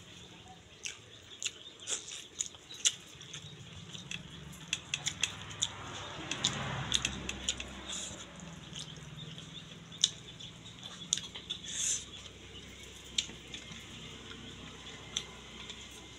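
A person eating rice and curry by hand: scattered sharp clicks of chewing and lip smacks, with the soft squish of fingers mixing rice on a steel plate.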